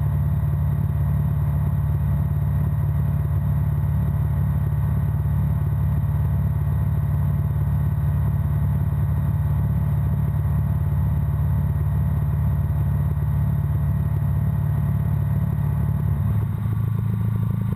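Breezer ultralight aircraft's piston engine and propeller running steadily in cruise flight, a constant drone whose note shifts a little near the end.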